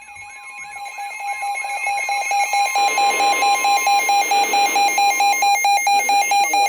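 Emergency Alert System attention signal aired over the radio: a loud steady alarm tone that pulses about four times a second, swelling up over the first two or three seconds, with a faint repeating warble beneath it at the start.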